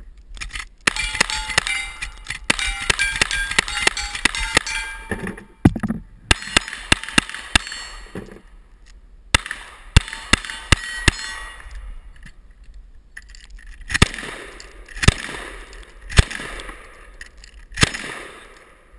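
A cowboy action shooting stage fired against steel targets. It opens with a fast string of about ten lever-action rifle shots, each one followed by the ring of struck steel plates. Two quicker strings of revolver shots follow, then four pump-shotgun blasts a second or so apart near the end.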